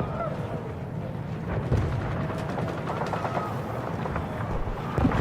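War-film battle ambience: a steady low rumble of distant shelling, with faint far-off voices and a few scattered sharp cracks.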